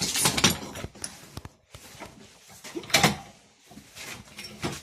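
Clanking and knocking of metal parts being handled, in three separate bursts: at the start, about three seconds in and near the end.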